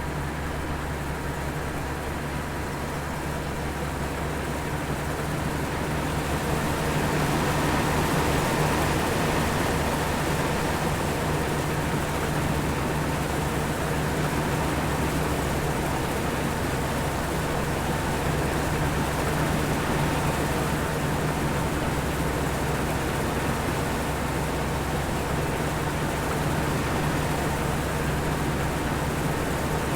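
A machine or engine running steadily with a constant hum, getting somewhat louder about six seconds in and then holding.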